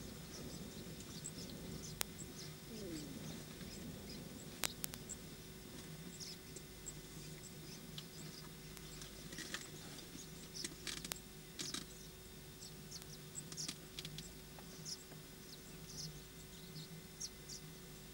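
Faint outdoor ambience: scattered short, high chirps and ticks over a steady low hum, with a few sharp clicks, the first about two seconds in and another near the middle.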